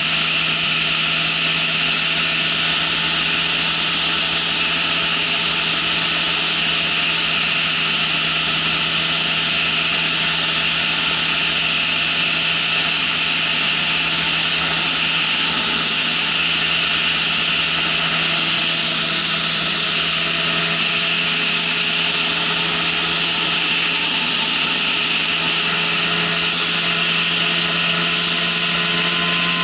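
Ultralight trike's engine and propeller running steadily in flight: a constant low drone under a loud, even rushing noise.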